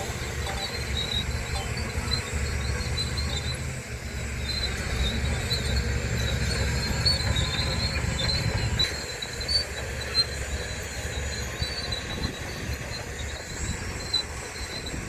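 Crawler bulldozer working: its diesel engine runs heavily, with the steel tracks squealing and squeaking over and over. The engine's low rumble eases about nine seconds in.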